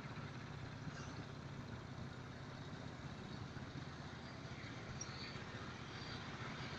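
Steady low engine hum of the distant truck-mounted cranes' diesel engines running, over open-air background noise.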